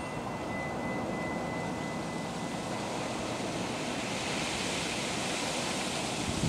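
Steady rushing noise, like wind. A wind chime's single high ringing tone dies away in the first couple of seconds.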